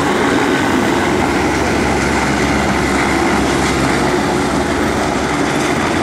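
Loud, steady rumble of motor vehicles, with a low hum underneath and no distinct strokes or rhythm.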